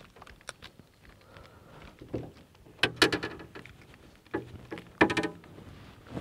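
Handling noises as a caught smallmouth bass is held by the lip and unhooked: several short, sudden bursts of sound, the loudest about three and five seconds in.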